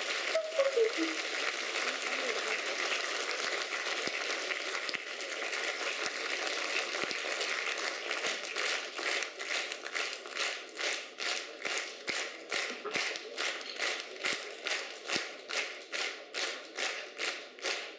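Concert audience applauding after a song. The scattered applause turns about halfway through into rhythmic clapping in unison, about two claps a second.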